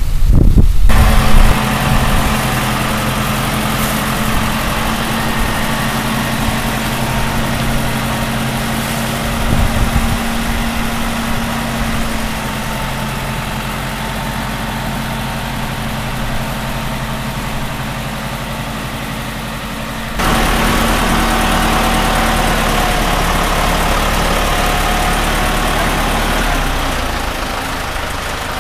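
Diesel engine of a New Holland tractor running at a steady, even speed. A louder rush fills the first second, and the engine suddenly grows louder and closer about two-thirds of the way through.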